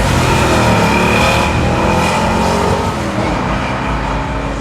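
A car engine revving and accelerating, loudest in the first second or so and then easing off a little.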